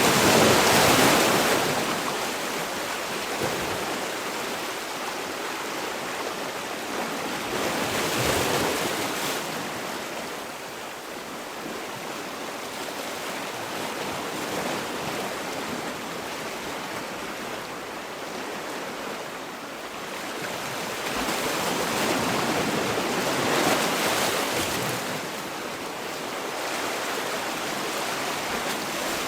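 Sea waves breaking and washing in, a steady rush of surf that swells and eases in slow surges, loudest near the start, again about eight seconds in, and around twenty-four seconds.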